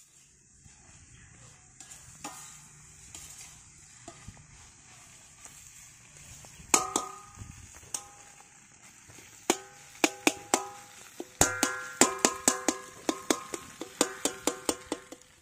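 Goat blood fry sizzling in a kadai over a wood fire while a steel ladle stirs it. From about halfway the ladle knocks against the pan with sharp ringing clanks, coming thick and fast near the end.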